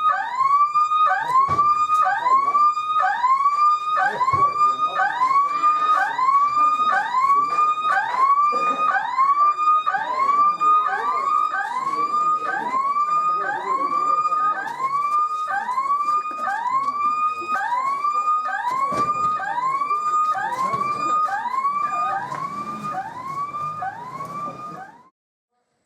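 Emergency-vehicle electronic siren sounding a loud, evenly repeating rising sweep, a little more than once a second; it cuts off suddenly shortly before the end.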